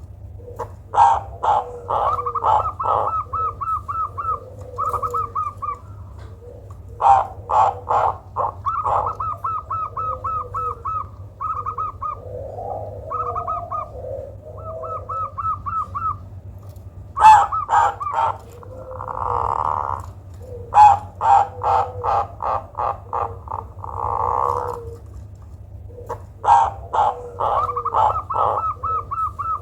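Zebra dove (perkutut) calling: bouts of rapid, staccato cooing notes repeated every few seconds, with a few longer single coos between them. This is the unusual call said to work well as a lure recording. A steady low hum runs underneath.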